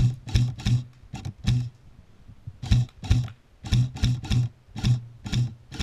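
Electric airsoft AK rifle firing single shots on semi-auto, about a dozen in quick runs with a short pause around two seconds in. Each shot is a sharp crack with a brief buzz of the gearbox cycling.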